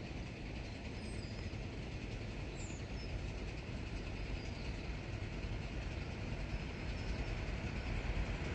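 Steam locomotive and its train approaching on the main line, a low rumble that slowly grows louder as it comes closer.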